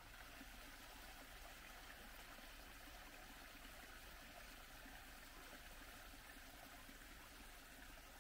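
Faint, steady rush of running water.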